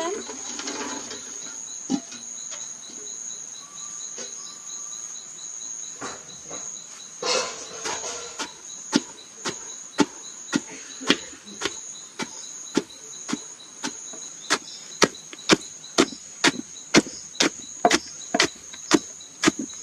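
Soaked majo palm fruits being stomped: a run of short dull knocks, about two a second, starting about eight seconds in and getting louder later on. Insects trill steadily throughout.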